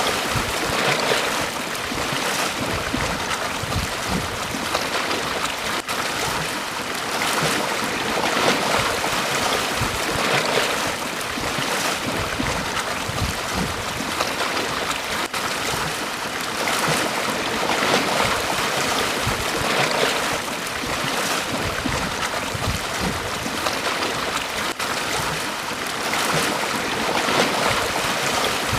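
Small waves washing onto a beach, a continuous wash of surf that swells and falls back every few seconds, with some wind on the microphone.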